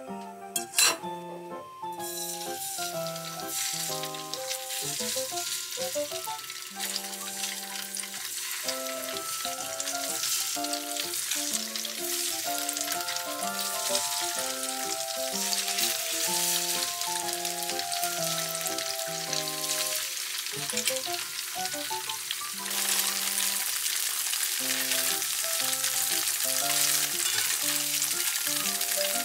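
Tofu slabs sizzling as they fry in hot oil in a pan, a steady hiss that begins about two seconds in and grows louder near the end as more pieces are laid in. One short sharp knock is heard about a second in.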